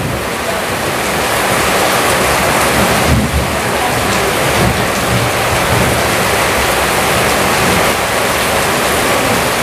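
Rain falling steadily, an even hiss of water.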